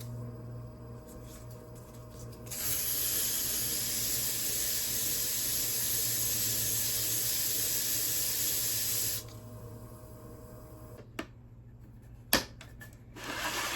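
400-grit diamond sanding pad grinding the bottom of a ceramic pot under firm pressure: a steady gritty hiss starting a few seconds in and stopping at about nine seconds, over a low steady hum. This is the fine-grit pass that smooths the scratchy unglazed foot. Two sharp knocks follow near the end.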